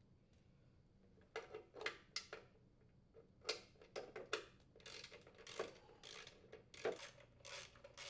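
Faint, irregular clicks and scrapes from a hand-held 3/8-inch socket driver unthreading the engine housing's mounting screws, starting a little over a second in.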